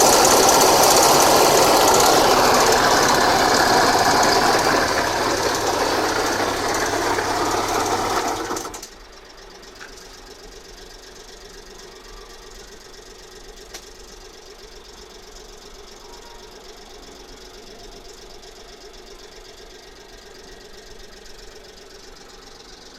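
Suzuki Let's 4 (CA41A) 50 cc four-stroke scooter engine running loudly with an abnormal noise. About eight seconds in the sound drops sharply to a much quieter, steady run.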